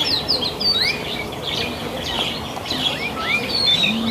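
Many small birds chirping together, a busy run of short rising and falling chirps overlapping one another.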